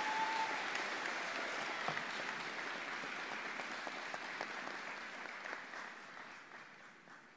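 Audience applauding, the clapping gradually dying away and stopping near the end.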